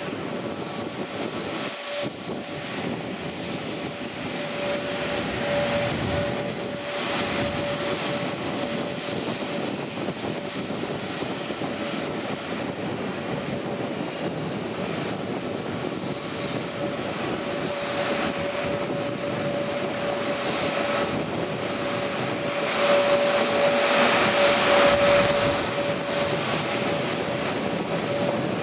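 Airbus A321 jet engines at taxi power: a steady rush with a constant whine, swelling louder about 23 seconds in and easing off again.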